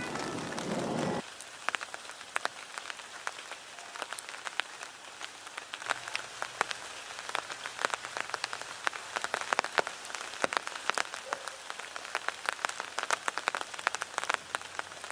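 Steady rain falling, with many sharp, irregular taps of individual drops striking a surface close by.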